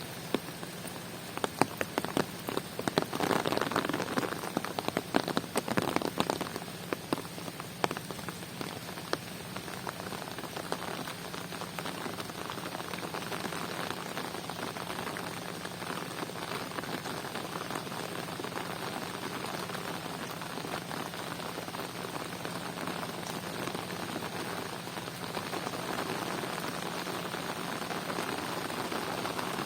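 Rain falling steadily, a dense hiss of drops on surfaces. From a couple of seconds in until about eight seconds, a spell of loud, sharp drop impacts ticks close by.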